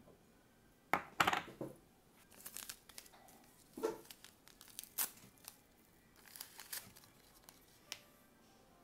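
A tea-bag wrapper being torn open and crinkled by hand in short rustling bursts, with a few light knocks about a second in and near four seconds as the bamboo lid and glass teapot are handled.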